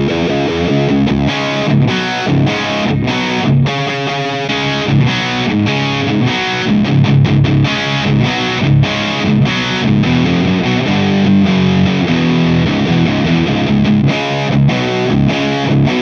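High-gain distorted electric guitar riff broken by many short stops, played on a Stratocaster's humbucker through small EL84 tube amp heads, an Orange OR15 and a Mesa/Boogie Rectoverb 25 in turn. The amps are recorded direct through a Torpedo Captor X with a 4x12 cabinet impulse response.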